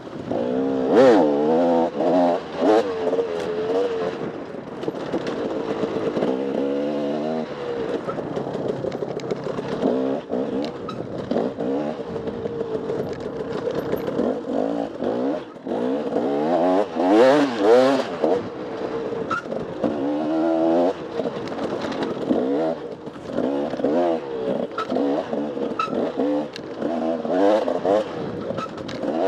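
Enduro dirt bike engine being ridden hard, revving up and falling back again and again as the throttle is worked.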